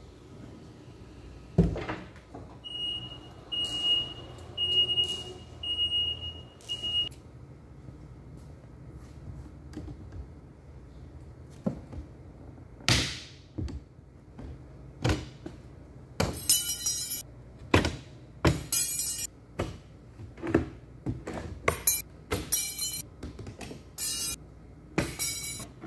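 A forklift sets a heavy wooden crate down on concrete with a thud, then its warning beeper sounds five times, about once a second. Later, a pry bar levers at the crate's edges with sharp cracks and metallic snaps as the metal spring clips holding the crate panels are popped off.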